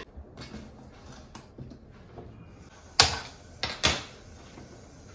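A gas stove burner being lit with a hand-held spark gas lighter: three sharp clicks about three to four seconds in, the first the loudest. Soft metal handling of a stainless-steel pressure cooker comes before them.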